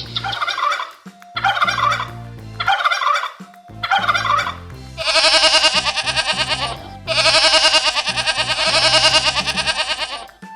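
A bird calling over background music: four short calls, then two long calls that pulse rapidly, the second the longest.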